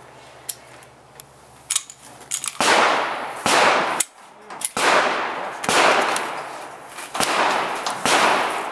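A string of about six handgun shots, roughly one a second, each sharp report ringing off briefly. A few faint clicks come before the first shot.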